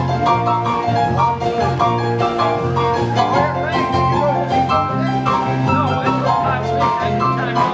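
Live country dance band playing an instrumental passage: a lead melody over a bass line and a steady drum beat.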